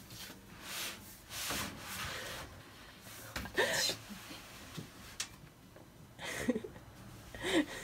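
Large sheets of grey cardboard rubbing and scraping as they are pulled from a rack and handled, in several separate swishing strokes.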